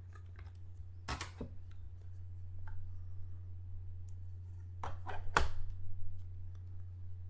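Clear plastic card case being pried open and its halves handled and set down: short plastic clicks and scrapes in two clusters, about a second in and again about five seconds in, over a steady low hum.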